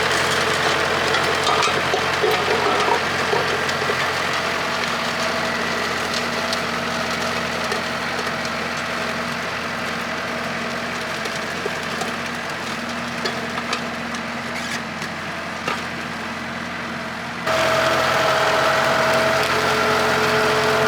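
TYM compact tractor's diesel engine running steadily while it pulls a disc harrow, with scattered light knocks. About three-quarters of the way through, the sound jumps suddenly louder and higher.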